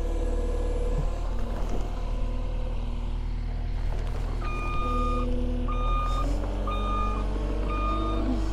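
Caterpillar compact track loader's diesel engine running. About halfway through, its backup alarm starts: evenly spaced high beeps, a little over one a second, as the machine reverses.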